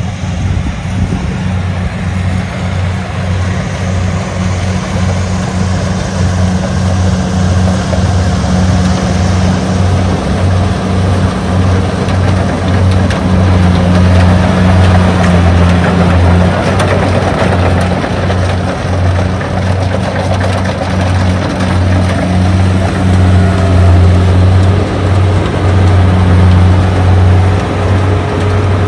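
Kubota rice combine harvester running as it cuts and threshes rice: a steady diesel engine hum with the clatter and rush of the cutting and threshing gear, growing louder as the machine comes close.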